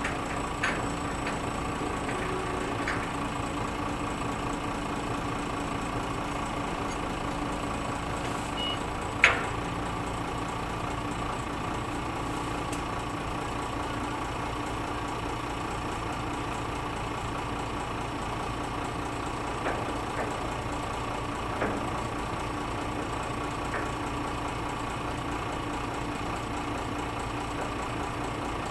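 Forklift engine idling steadily, with a few short sharp knocks over it, the loudest about nine seconds in.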